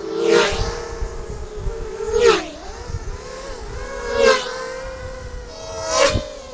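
FPV racing mini quadcopters buzzing past one after another, four passes about two seconds apart. Each pass is a high whine from the electric motors and propellers that swells and drops in pitch as the quad goes by.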